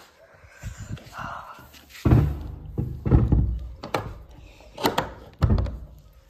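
A series of heavy thuds and knocks, about five at irregular spacing, beginning about two seconds in.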